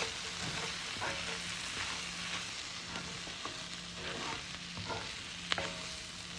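Halved Brussels sprouts sizzling in butter and oil in a skillet, tossed with a utensil that scrapes the pan, with a sharp tap about five and a half seconds in.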